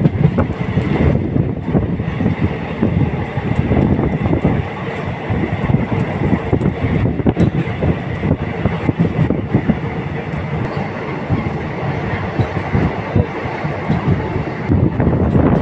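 Running noise of an Indian Railways express train, heard from inside a coach by the window: a steady rumble of the wheels on the track with frequent short clattering knocks.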